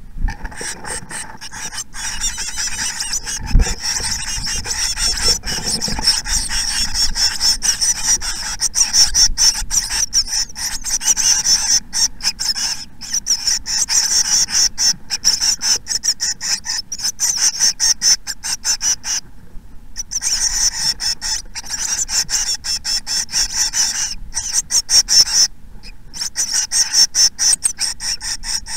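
Blue tit nestlings begging, a dense high-pitched chorus of rapid calls close up inside the nest box, breaking off briefly about two-thirds of the way through and again near the end.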